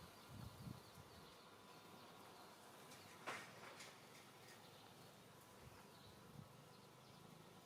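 Near silence: faint background with a few soft low bumps in the first second and one brief rustle a little over three seconds in.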